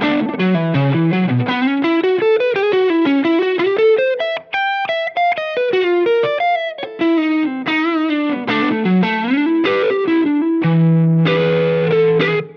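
Electric guitar played through a Cornerstone Antique Classic Drive V2, a Tube Screamer-style overdrive pedal, with a mild distorted tone. Quick single-note lead lines give way to held chords over the last couple of seconds, which cut off at the end.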